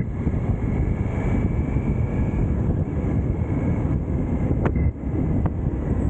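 Triumph Tiger 900 GT motorcycle cruising at steady speed, its three-cylinder engine running under a heavy rush of wind noise on the microphone. A couple of brief clicks and a short dip in loudness come about five seconds in.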